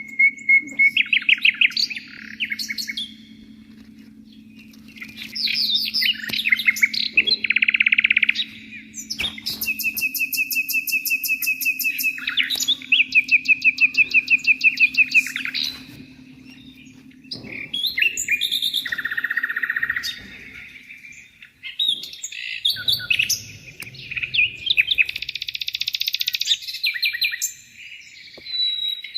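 Several small birds singing and chirping, with phrases of rapid, evenly repeated chirps and trills that overlap and follow one another with short pauses.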